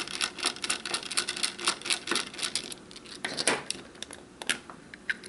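Small screwdriver working the screws of a plastic camera's battery cover: a quick run of light clicks and scrapes that thins out after about two and a half seconds into a few separate clicks as the cover is handled.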